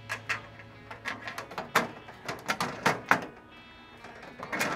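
Irregular sharp metallic clicks and taps from a screwdriver and screws being started into the steel grease collection channel and body of a Char-Griller Gravity 980 charcoal smoker. About a dozen in the first three seconds, a short lull, then a few more near the end.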